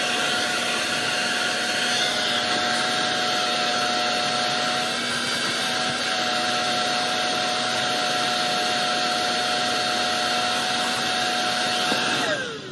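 Shop vacuum running steadily with a constant whine as its hose sucks up dust. Near the end it is switched off and the motor winds down, its whine falling in pitch.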